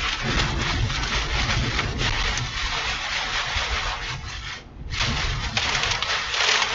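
Strong wind buffeting the microphone: a loud rushing noise with a low rumble, which cuts out for a moment about four and a half seconds in and then returns.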